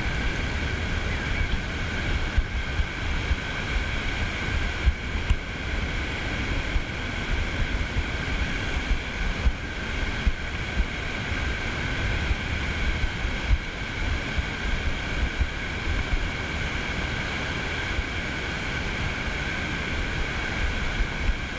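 Small waves breaking and washing up over wet sand in the shallows, with gusts of wind buffeting the microphone.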